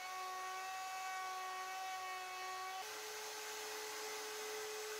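Plunge router with a flush-trim bit running steadily as it trims a plywood drawer face to a template, a high motor whine. About three seconds in the whine steps up slightly in pitch.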